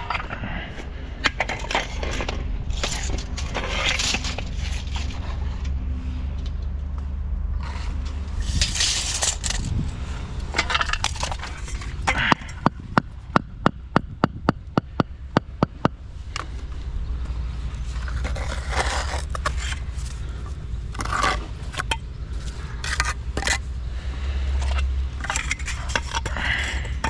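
Building work: scraping and handling noises over a steady low rumble, with a fast run of about a dozen sharp knocks about halfway through.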